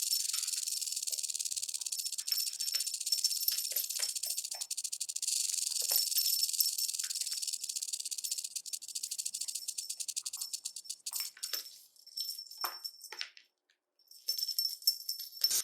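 Snake sound effect: a high-pitched hissing rattle of rapid clicks. Near the end it breaks into a few short separate rattles, stops briefly, then starts again.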